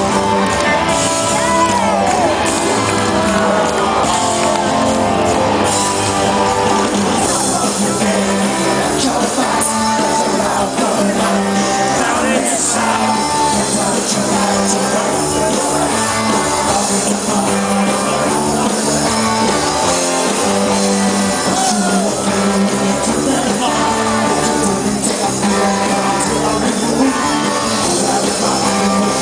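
A rock band playing live at full volume, with sung vocals over guitars, bass and drums.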